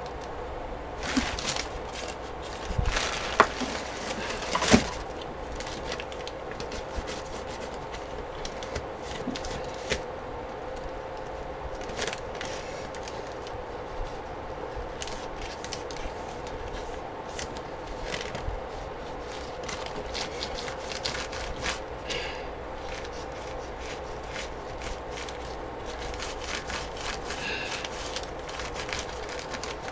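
Paper art-journal page being handled and worked on: a few knocks and paper shuffles in the first five seconds as the page is moved, then light scratchy ticks and rubbing on the paper, over a steady low hum.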